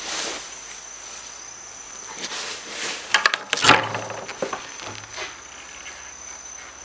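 Footsteps and knocks of someone climbing up, a quick cluster of them about three seconds in, over a steady high-pitched insect drone.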